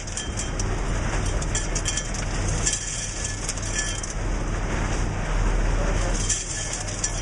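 Ice pouring from a Cool-Serve 1300 ice-vending machine's dispenser into an esky: a dense, rain-like clatter of ice cubes, over a steady low hum.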